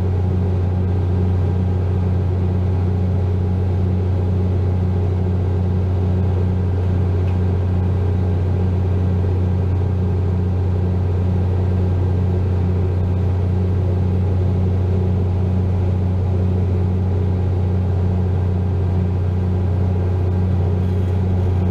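Ford 7840 tractor's diesel engine running at a steady speed, heard from inside the cab, with the rear-mounted bale chopper running; a constant low hum.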